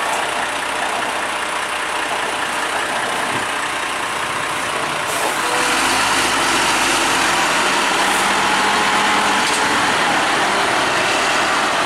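Diesel engine of a heavy tractor truck hauling a loaded low-loader trailer, running slowly through a tight hairpin; it grows louder about halfway through as it pulls.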